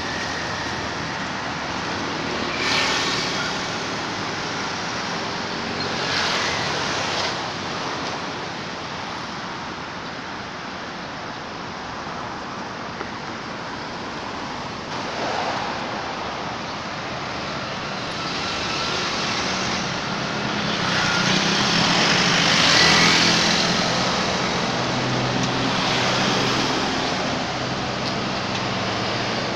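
Road traffic going by: a continuous hiss of passing vehicles, with several swelling as they pass close, the loudest about three-quarters of the way through along with a low engine hum.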